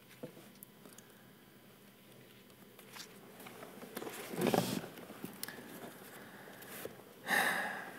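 Soft rustling and small handling noises of a paperback book's pages being leafed through. There is a louder rustle about halfway and another near the end.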